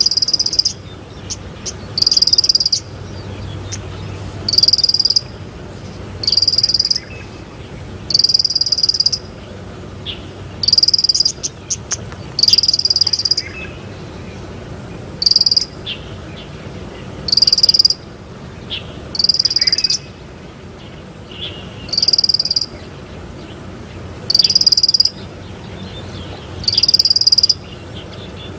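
Ciblek alang-alang (a small prinia) singing, with a buzzy, insect-like phrase of about half a second to a second repeated roughly every two seconds, about fourteen times. A faint steady high-pitched whine runs underneath.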